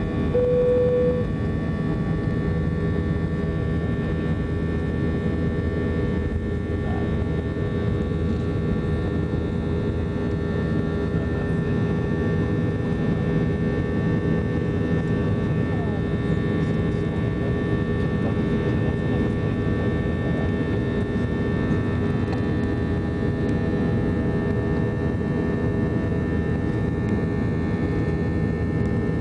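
Airbus A320 cabin noise during the climb after takeoff: the jet engines' steady drone under a haze of airflow, with several steady whining tones. A short single tone sounds about a second in.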